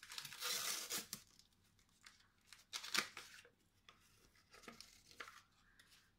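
Paper sachet of pudding powder being torn open, a dense tearing rustle in the first second, followed by scattered crinkles and a few light knocks as the sachet is handled and emptied into the steel mixing bowl.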